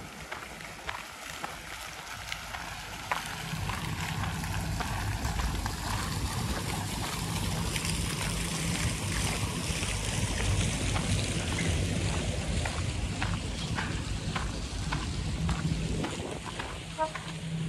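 Fountain jets splashing into a basin, a steady water noise that grows louder about four seconds in, with footsteps crunching on a gravel path and a low steady hum starting at about the same time.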